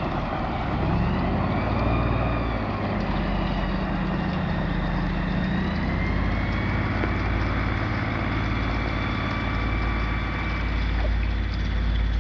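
Police airboat's engine and large caged propeller running steadily as it pushes through thin lake ice, with a high whine that dips in pitch early on and rises again about halfway through.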